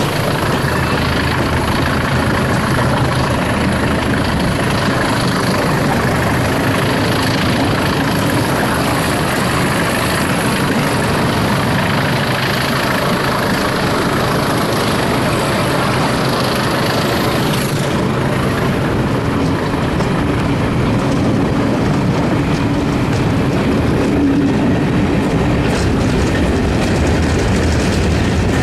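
English Electric Class 20 and Class 50 diesel locomotives working hard under power at either end of a passenger train, with the carriage wheels clattering over the rails, heard from an open carriage window. The sound changes about two-thirds of the way through.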